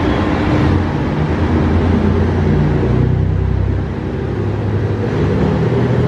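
JR Shikoku 2700 series diesel multiple unit pulling out of the station: its diesel engines run loud and steady under power, the low drone shifting in pitch partway through as the train gathers speed.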